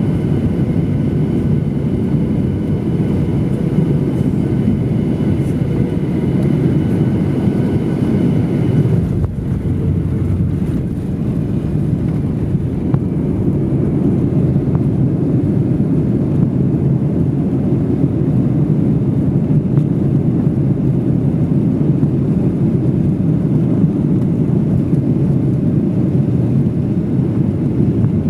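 Airliner landing in typhoon winds: a steady, loud rumble with a thin high engine whine over it that drops away about nine seconds in.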